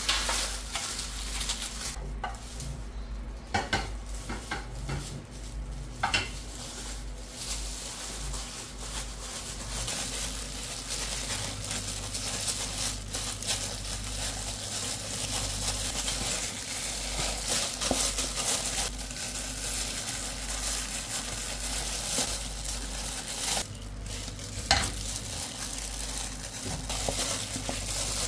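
Thin plastic food-prep gloves crinkling, with wet squishing and rubbing, as hands work a spice paste into a whole fish in a plastic tub. At first, gloved hands wipe a wet metal baking tray.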